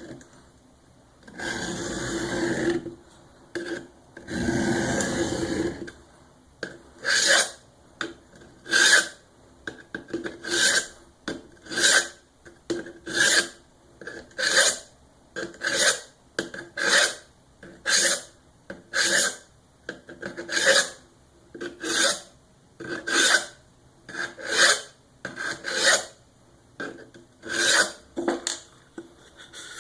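Steel knife blade stroked with firm pressure across a coarse diamond sharpening plate, a dry rasping scrape. There are two longer strokes first, then a steady run of short strokes at a little over one a second.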